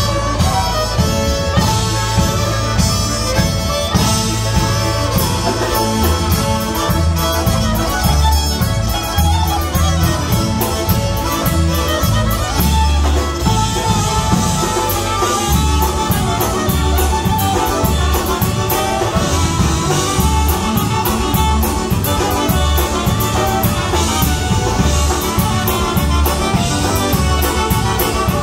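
Live polka band playing a Góral-style polka: fiddle, accordion, electric bass guitar and drum kit over a steady beat.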